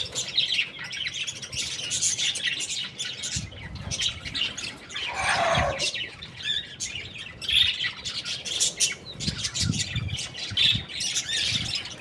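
Young chickens chirping continuously with many short, high cheeps. About five seconds in, one louder call slides down in pitch.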